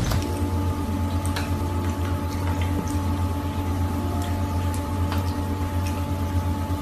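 A cat's paw splashing and dabbing in a bowl of water, with small wet slaps and drips, over a steady low hum.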